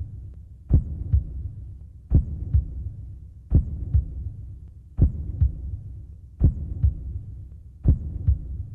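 Slow heartbeat sound effect: six double beats, a strong low thump followed by a softer one, about every second and a half, over a steady low hum.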